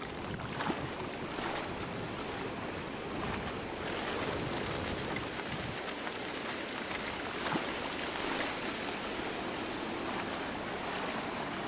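A steady rushing noise that grows louder and hissier about four seconds in.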